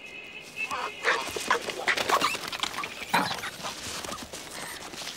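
Monkeys screaming and shrieking in a fight: a rapid, overlapping jumble of harsh calls that breaks out about a second in.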